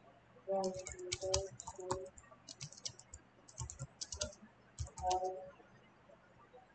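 Typing on a computer keyboard: several short runs of quick keystrokes with brief pauses between them.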